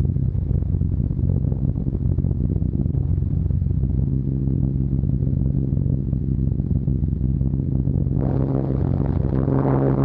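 Steady drone of a Short Stirling heavy bomber's four Bristol Hercules radial engines in cruise. About eight seconds in, the sound turns brighter and harsher over the same drone.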